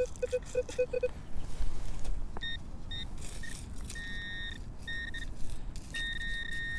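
Handheld metal-detecting pinpointer beeping high-pitched as it is probed into wood-chip mulch over a coin, its beeps lengthening into a steady tone. It comes after a quick run of short, lower beeps in the first second, with wood chips rustling.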